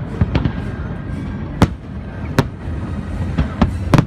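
Aerial fireworks shells bursting: a string of about six sharp bangs at irregular intervals, the loudest about a second and a half in, again past two seconds and near the end, over a continuous low rumble of further bursts.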